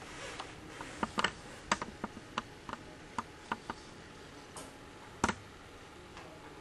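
Scattered light clicks and taps from a small servo-driven robotic feeding arm as it moves and stabs food with its fork, with one louder click about five seconds in.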